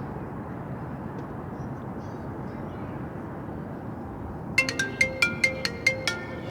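Steady outdoor background noise, then, about four and a half seconds in, a mobile phone ringtone starts: a quick melody of bright, sharply struck notes, about ten in a second and a half.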